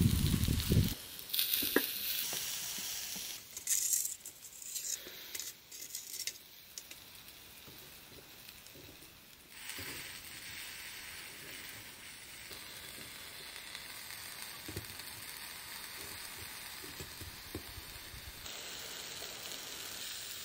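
Vegetables sizzling in a cast-iron skillet over a charcoal shichirin grill. There are a few knocks and clicks in the first seconds, and then a steady, quieter hiss.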